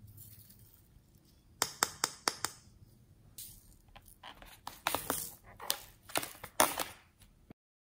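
Close-up handling noises: a quick run of sharp clicks about two seconds in, then irregular rubbing and squeaking as a pink rubber balloon is held and squeezed in the hands.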